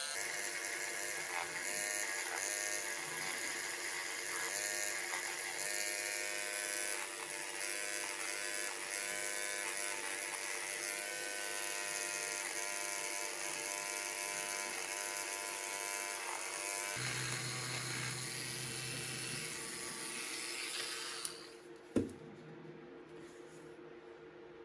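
Mini electric rotary tool with a sanding-drum bit running and sanding the edge of a dried air-dry clay dish. Its whine dips and recovers over and over as the bit bears on the clay. It switches off about 21 seconds in, and a single knock follows as the tool is set down.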